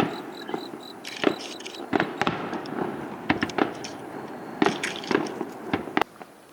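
Fireworks finale: a rapid, irregular barrage of bangs from bursting aerial shells, some in quick clusters, over a continuous rumbling haze, dying down about six seconds in.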